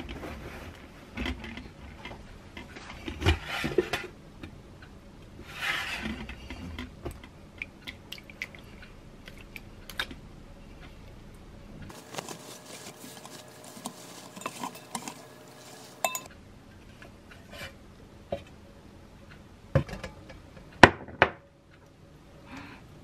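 Yogurt being set to strain: cheesecloth rustling and a stainless steel sieve and metal pot being handled, with scattered clinks and knocks. Near the end come two sharp clinks of metal, the second the loudest.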